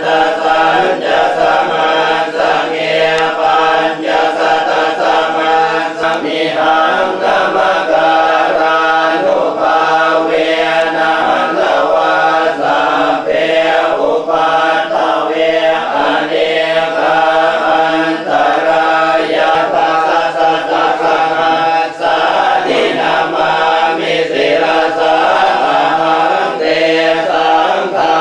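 Buddhist monks chanting in a steady, unbroken drone of several voices, the chanting of a consecration (phuttha-aphisek) ceremony.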